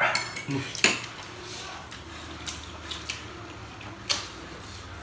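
People eating noodles with forks: slurping, and forks clinking and scraping on ceramic plates, with sharp clicks just before a second in and again about four seconds in.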